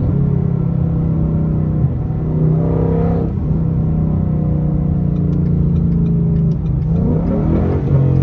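Ford Mustang GT's 5.0 V8 with a loud exhaust, heard from inside the cabin while driving. The engine note rises as it accelerates, about three seconds in and again near the end.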